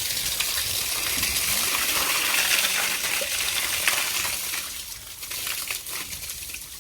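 Water gushing and splashing into a swimming pool as it starts to fill, with a spattering of small splashes, dropping in level near the end.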